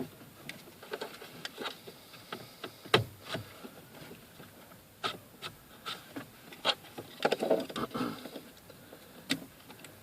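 Scattered sharp plastic clicks and knocks, the loudest about three seconds in, with a stretch of rubbing and scraping around seven seconds in, as a Suzuki Wagon R+ indicator stalk switch unit is worked into its rails on the steering column.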